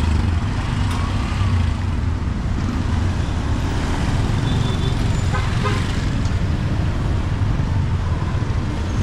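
Steady street-traffic noise from motorbikes, scooters and cars running and passing close by, a continuous low engine rumble.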